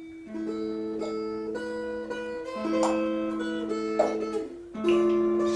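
Dulcimer strummed, playing a slow melody over long held drone notes.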